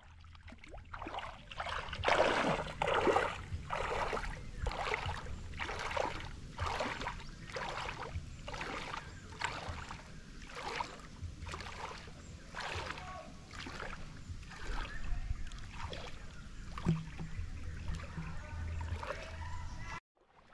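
Water splashing in a steady rhythm of swimming strokes in a river, a little faster than one splash a second, loudest about two seconds in.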